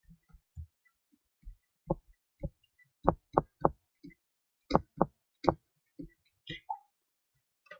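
Pen stylus tapping and clicking on a drawing tablet while handwriting, a string of short, irregular taps that bunch together in the middle.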